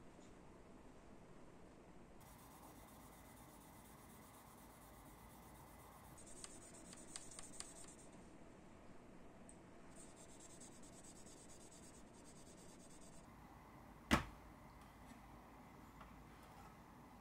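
Faint hand sanding of a plastic model car body's clear coat with fine-grit abrasive, in mirror-finish polishing; the rubbing grows a little louder for a couple of seconds about six seconds in. One sharp tap, the loudest sound, comes about fourteen seconds in.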